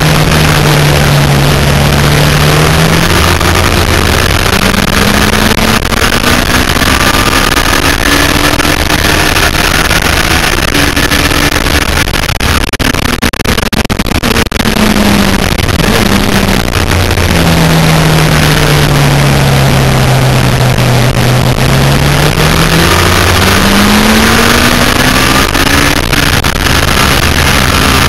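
Yamaha FZR1000 inline-four engine at racing speed under heavy wind rush. The revs drop under braking and then climb hard on acceleration, twice.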